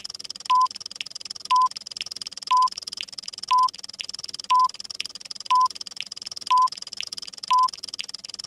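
Countdown timer sound effect: a short electronic beep once a second, with quick clock ticks between the beeps. A steady high hiss runs underneath.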